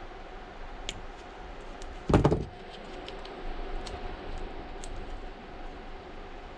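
Small clicks and ticks of precision tools being handled at a repair bench, with one brief, louder thump a little over two seconds in, over a faint steady hum.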